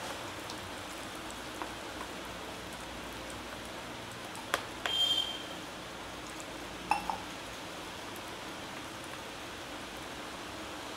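Silicone spatula stirring thick gram-flour batter in a glass bowl over a steady low hiss. A few soft clicks, then two brief ringing clinks of a pouring vessel against the glass about five and seven seconds in, as liquid is added to thin the batter.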